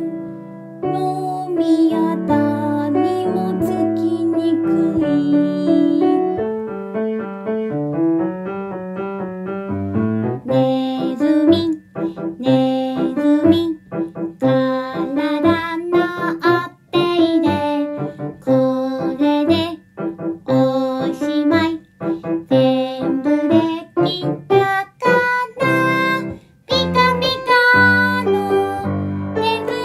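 A children's song with a woman singing over a piano or keyboard accompaniment.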